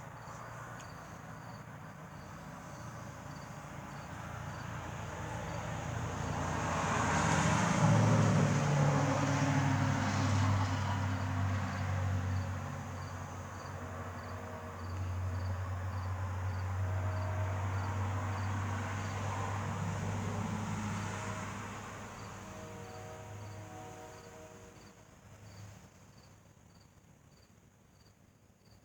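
A train running in the distance: its engine rumble and hum build to a peak about eight seconds in, hold, then fade away over the last few seconds. Crickets chirp steadily throughout.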